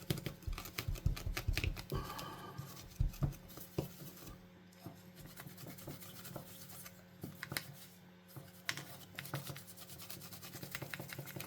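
A cloth rubbing and wiping over a game controller's circuit board, with irregular scrapes and small clicks and knocks as the board is handled.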